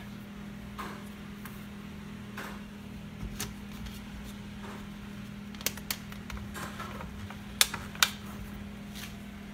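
Single-serve K-cup coffee maker running just after being started, a steady low hum. Two pairs of sharp clicks come about six and about eight seconds in.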